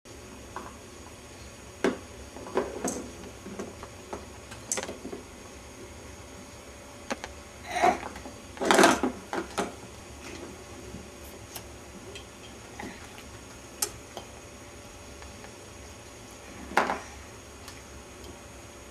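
Scattered clicks and knocks of plastic toys being handled on a baby's exersaucer tray, with a louder cluster of sounds about eight to nine seconds in and another short one near the end.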